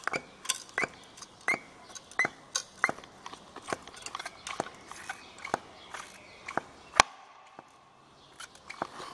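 Rubber primer bulb on the carburettor of a Vito VIR43E 43 cc two-stroke brushcutter being pressed by thumb again and again, a short click and squeak with each press, roughly one to two a second, priming fuel for a cold start. One sharper click stands out about seven seconds in.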